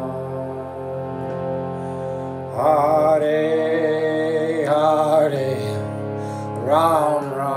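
A man singing a slow kirtan chant in long, held phrases over a steady sustained instrumental drone.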